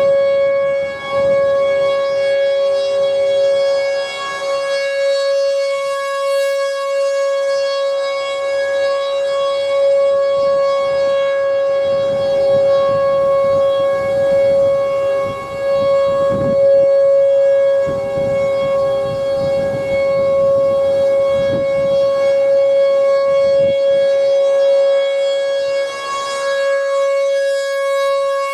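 American Signal T-128 outdoor warning siren sounding a steady alert tone at one held pitch, its loudness swelling and dipping.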